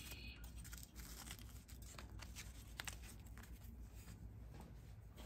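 Strut parts being handled by hand: faint rubbing with a few light, scattered clicks over a low steady hum.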